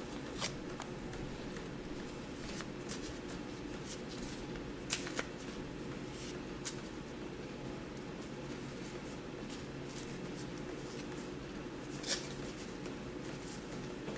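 Oracle cards being handled: a few scattered light clicks and taps, the sharpest about five seconds in and another near the end, over a steady low hum.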